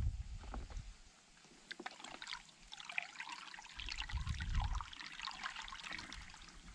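Water trickling and splashing as a plastic bucket of muddy water holding small fish is tipped into a ditch and a hand releases the fish into it, with a couple of low muffled bumps at the start and about four seconds in.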